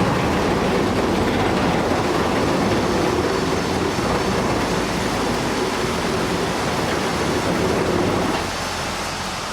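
Steady mechanical noise of a large vehicle running, dropping a little in level about eight and a half seconds in.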